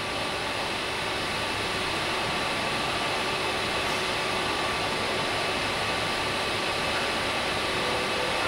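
Riello VFX 300 rotary transfer machine working a brake master cylinder body: the machining spindle running with a tool in the part, a steady hiss with a faint high whine.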